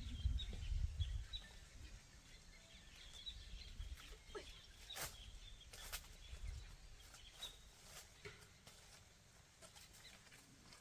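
Faint outdoor ambience: small bird chirps over a low wind rumble on the microphone, with a few sharp clicks about halfway through.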